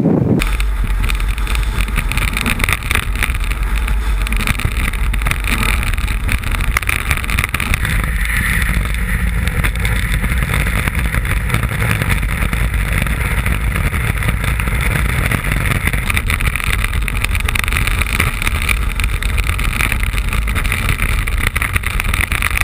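Iceboat sailing fast over the ice, heard from a camera mounted on its hull: a steady rushing rumble of wind on the microphone and the runners on the ice.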